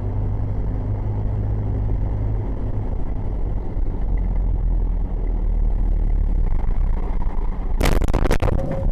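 Loud, steady low rumble of heavy-vehicle engine and road noise as a dump truck drives close alongside. About eight seconds in, a short cluster of sharp, loud cracks and bangs.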